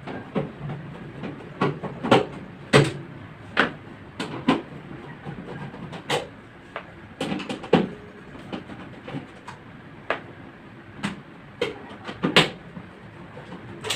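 Irregular knocks and clunks, about one a second, from working on and handling the metal casing of a stripped microwave oven, over a steady hiss.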